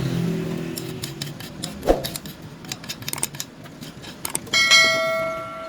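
Steel pieces clinking and knocking together, then a piece of steel is struck and rings with a clear metallic tone that dies away over about a second.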